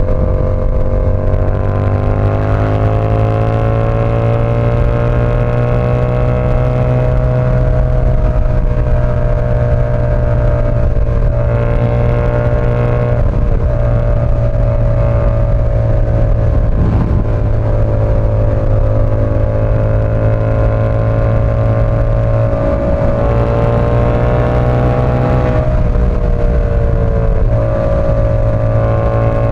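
Yamaha R7's parallel-twin engine running at steady cruising throttle. Its pitch drifts gently up and down, with a few brief dips.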